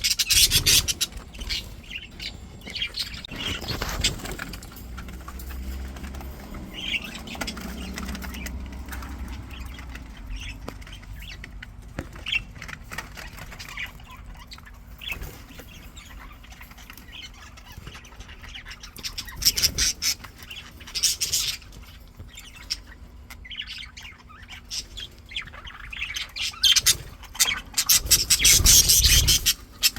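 Pet budgies chirping and squawking in bursts, with wing flapping. The busiest chatter and flapping come near the end.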